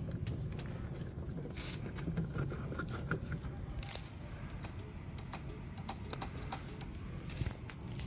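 Handling noise around a scooter's plastic bodywork: scattered light clicks and scrapes, with two sharper knocks about one and a half and four seconds in, over a steady low hum.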